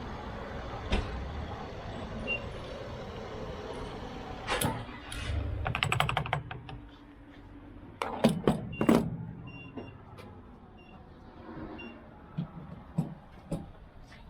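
A truck's engine running low, with clicks and a quick rattle about six seconds in. The rumble then drops away, followed by several sharp knocks and clatter, then a few quieter knocks.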